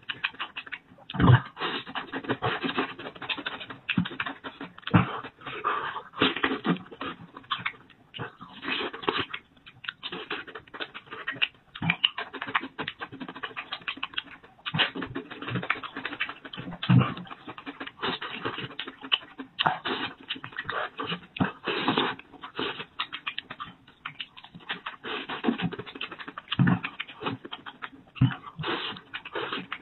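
Close-miked eating sounds: wet chewing, lip-smacking and sucking as a man eats meat picked from a braised sheep's head, an irregular run of small clicks with a few louder thuds.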